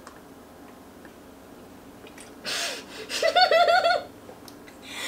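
A girl's sharp breath out about two and a half seconds in, then a short burst of high-pitched laughter, a few quick 'ha' pulses, during a race to drink a glass of water.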